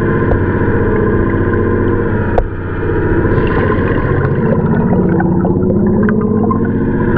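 Fishing boat's engine running, heard underwater through a waterproof microphone: a steady, muffled low hum with a fast even pulse. One sharp click about two and a half seconds in.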